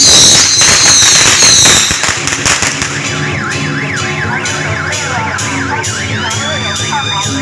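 Warbling electronic siren-like alarm tone sweeping up and down about three times a second, over a steady low hum. A loud crackling noise fills the first two seconds.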